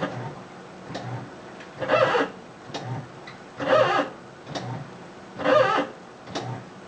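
Washing machine squealing as its drum agitates: three loud, pitched, moan-like squeals about every two seconds, with softer knocks and clicks between them.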